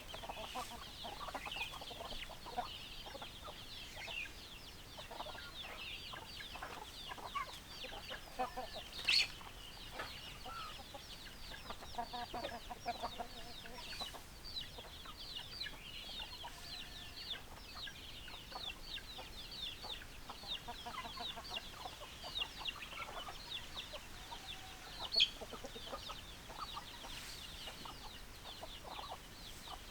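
A flock of chickens: hens clucking over a constant chatter of short, high, falling cheeps. Two sharp clicks stand out, about 9 and 25 seconds in.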